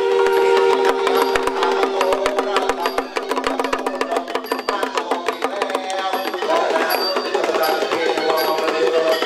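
A man chanting a sung invocation through a microphone, holding long notes through the first half and then moving into a wavering melodic line. Under the voice runs dense, fast percussion ticking from traditional Thai ritual music.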